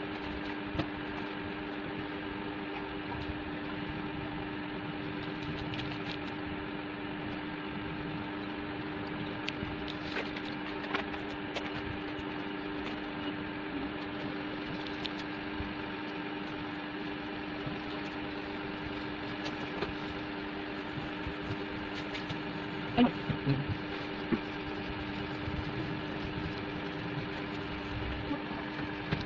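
Steady machine hum with several held tones, with scattered light taps and clicks and a short cluster of louder knocks about 23 seconds in.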